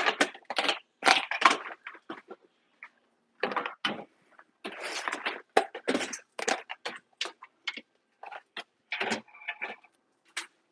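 Kitchenware clattering as plastic food containers and other items are stacked and set on cabinet shelves: a quick, irregular run of clicks, knocks and bumps.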